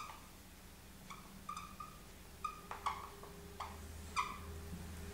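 Whiteboard marker squeaking against the board as a word is written: a string of short, high squeaks with a few light taps of the tip, over a low steady hum.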